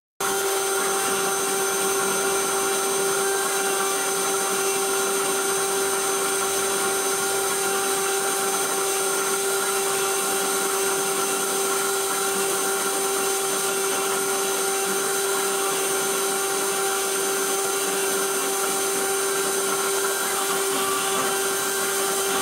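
CNC router spindle running at 24,000 rpm with a steady high whine, while its engraving bit cuts letters into a red plastic plate with an even hiss.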